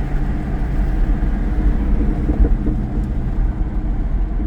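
Supercharged 6.2-litre HEMI V8 of a Dodge Challenger Hellcat Redeye, through a Corsa Xtreme exhaust, running steadily at low revs with a deep, even rumble.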